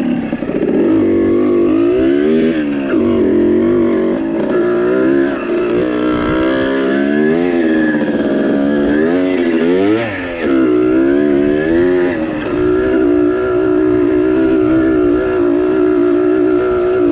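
Dirt-bike engine running hard, its pitch rising and falling again and again as it revs up and eases off, then holding a steadier pitch over the last few seconds.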